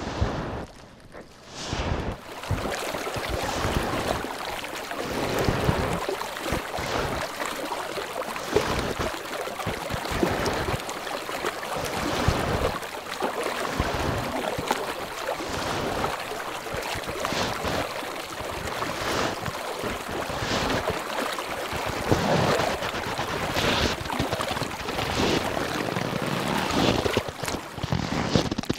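Freezing sea ice crackling and rustling on the water, a dense, continuous hiss of small cracks that settles into a steady run about two seconds in.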